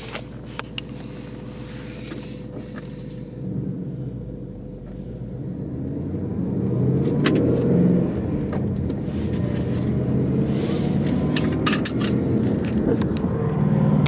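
Supercharged 2019 Ford Mustang GT's 5.0 V8, heard from inside the cabin: idling, then pulling away about three seconds in, with the engine note rising and getting louder before it holds steady while driving. A few clicks near the start.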